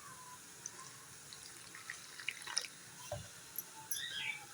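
Water poured into a bowl of maida flour and chilli flakes, dripping and trickling faintly, with a few light ticks.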